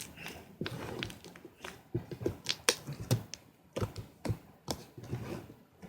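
Irregular light taps and clicks, a dozen or so, uneven in spacing, with soft handling noise between them.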